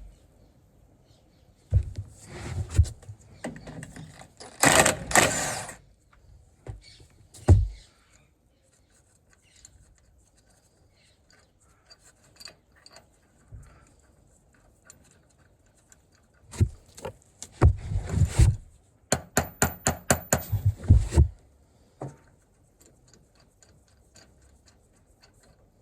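Tools and car parts knocking and clanking in scattered bursts as a road wheel and driveshaft bolt are removed, with a quick even run of about eight short strikes near the end.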